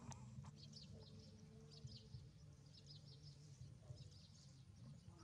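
Small birds chirping faintly, short high chirps repeated every half second or so, over a low steady hum.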